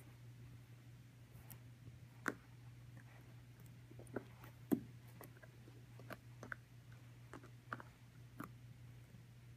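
Weimaraner puppy gnawing on a bully stick: faint, irregular clicks and crunches of teeth on the chew, a few sharper than the rest, over a low steady hum.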